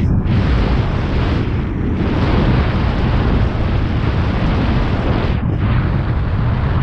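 Wind buffeting the microphone of a moving bicycle rider: a loud, steady rush, heaviest in the low end.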